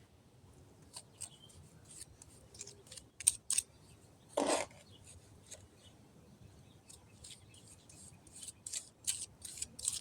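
Short, repeated scraping strokes of a hand tool working a cement mix over a concrete fountain bowl. There is a louder, fuller scrape about halfway through, and the strokes come quicker near the end.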